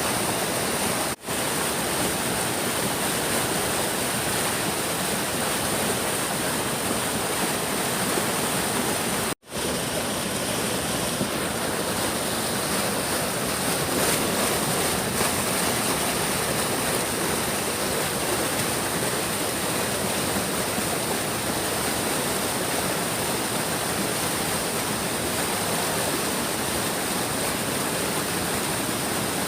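Large stream rushing steadily, a dense, even water noise. The sound cuts out for an instant twice, about a second in and again about nine seconds in.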